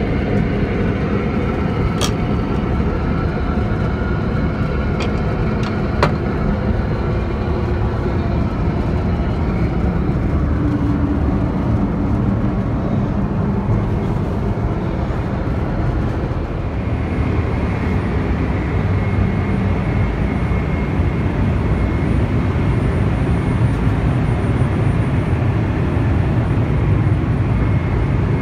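Steady in-flight cabin noise of a Boeing 777-300 airliner, heard from inside the lavatory. There are a few sharp clicks about two, five and six seconds in, and a faint high whine joins about halfway through.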